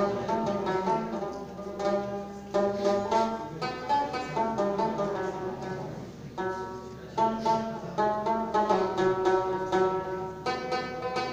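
Rabab, the short-necked Afghan lute, played solo: a quick plucked melody in repeating phrases, which thins out briefly about six seconds in.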